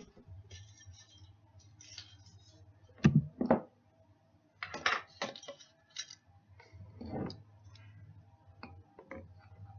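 Kitchen utensil handling: a spoon and containers knock, scrape and clink while ingredients for homemade brown sugar are added and stirred. Two loud knocks come about three seconds in, with smaller clinks after them, over a low steady hum.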